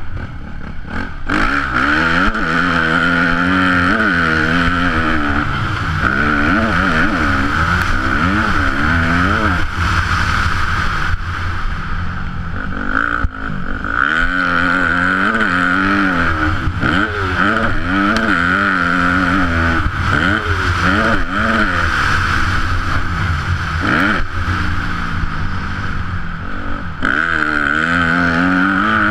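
Yamaha YZ250F's single-cylinder four-stroke engine being ridden hard on dirt: revving up and falling back again and again through the gears, corners and jumps.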